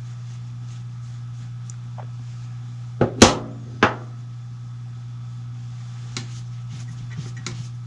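Three sharp knocks in quick succession about three seconds in, from the rifle being handled during its wipe-down, then a few light clicks near the end, over a steady low hum.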